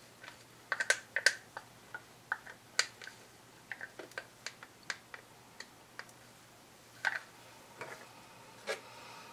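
Plastic paint cups and wooden craft sticks clicking and tapping irregularly as the cups are picked up, tipped to pour and set down, with the sharpest clicks in a cluster about a second in.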